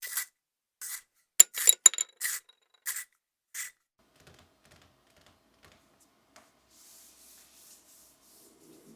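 Colored pencils clinking and scraping as they are handled, a quick run of sharp knocks with a slight ring in the first four seconds. Near the end come soft, repeated strokes of colored pencil shading on paper, about three a second.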